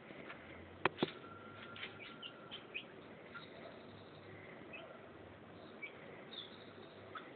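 Chickens peeping with short, high chirps scattered through, and two sharp clicks about a second in.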